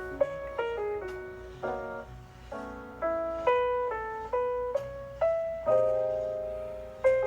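Background music: a piano playing a melody of single notes and chords, each note struck and left to fade.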